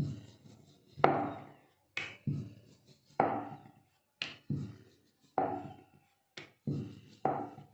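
A rolling pin knocks against a marble rolling board as puri dough is rolled out. The knocks are sharp and come about once a second, some in quick pairs, each with a short ringing tail.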